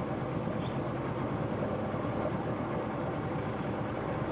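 A boat's motor running with a steady, even drone.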